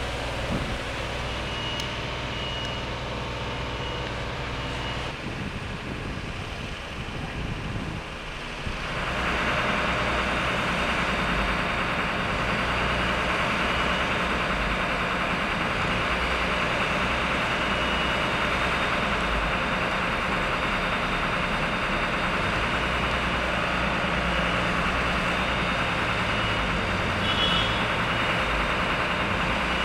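Heavy diesel engines of railway track-work plant running steadily, louder and fuller from about nine seconds in.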